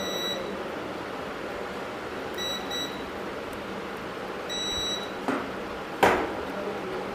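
Digital multimeter in continuity mode beeping as its probes touch PCB test points: a steady high beep about half a second long, twice, a beep showing the probed points are connected. About six seconds in a sharp knock, the loudest sound here.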